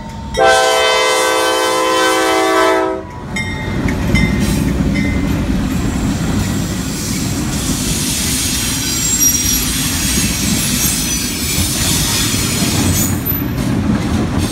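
Nathan K3LA air horn on a Norfolk Southern GE Dash 9 locomotive holding one long blast that stops about three seconds in. Then a string of six GE and EMD diesel locomotives running light passes close by: a heavy rumble of engines and wheels on the rail, with a faint high wheel squeal partway through.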